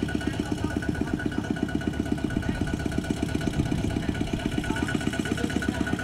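Single-cylinder diesel engine of a two-wheel walking tractor running steadily with a fast, even putter.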